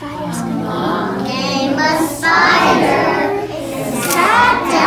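A group of young children chanting a nursery rhyme together in unison, in a sing-song voice.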